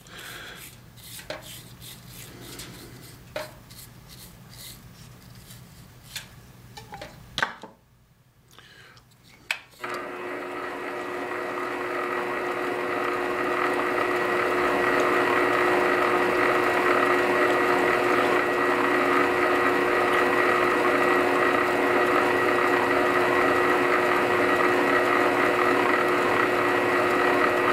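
Shellac being brushed onto a slowly turning, thread-wrapped handle on a small lathe, with light scattered clicks. After a short pause, about ten seconds in, the lathe's motor starts up and its hum grows louder over a few seconds, then runs steadily with a whine of several held tones.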